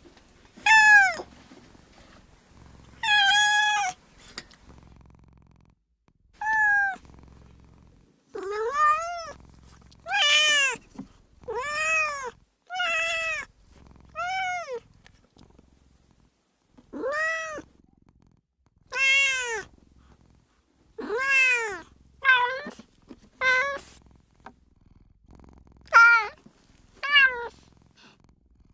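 A female domestic cat meowing over and over, about sixteen separate meows with short pauses between them. Each meow rises and then falls in pitch.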